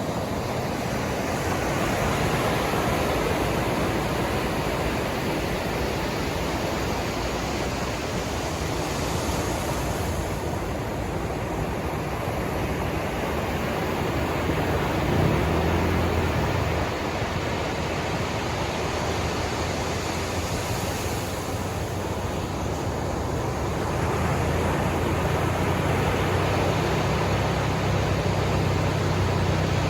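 Ocean surf washing in continuously, a steady rush that swells and eases slowly, with a low rumble underneath at times.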